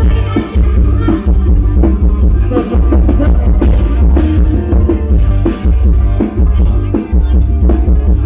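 Loud Isan pop music blasting from a rod hae sound truck's speaker stack, with a heavy pulsing bass beat, picked up on a camera microphone.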